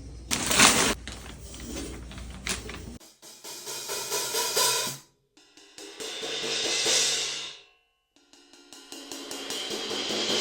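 Vulcan Dark Master cymbals played on a drum kit: a few seconds of drum-and-cymbal playing with sharp hits, then cymbal sound alone, in washes that build up and die away, twice.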